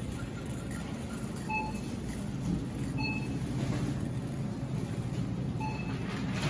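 Three short electronic beeps, about a second and a half in, at three seconds and near the end, over steady low background noise in a grocery store.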